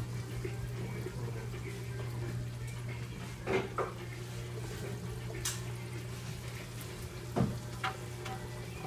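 Water splashing and trickling into a saltwater aquarium's sump from its drain pipes, over a steady low hum of the filtration pump. A few brief knocks break in around the middle and near the end.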